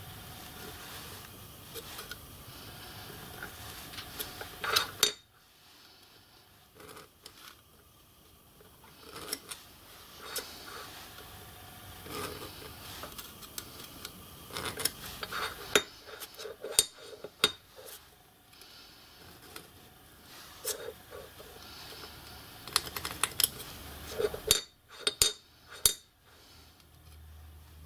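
Small steel hand tools clinking and scratching on a steel block as it is marked out with a scriber and dividers: irregular light clicks and short scrapes, with a few sharper clicks near the end.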